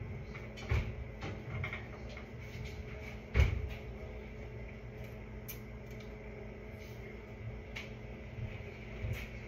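Kitchen doors being handled: a knock about a second in, a louder thud about three and a half seconds in, and another knock near the end, with light clicks between, over a steady low hum.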